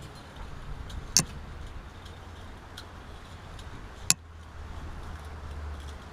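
Coiled metal heating-element wire being handled and pressed into a furnace's ceramic grooves: light metallic jingling and ticking with two sharp clicks, one about a second in and one about four seconds in, over a low steady rumble.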